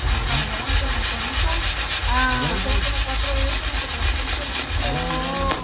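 Fireworks tower burning, its spinning spark wheels giving a steady, dense fizzing crackle over a low rumble.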